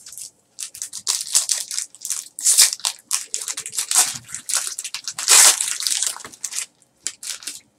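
Silver foil wrapper of a 2013 Bowman Chrome baseball card pack being torn open and crinkled by hand: a run of irregular crackles, loudest about five seconds in.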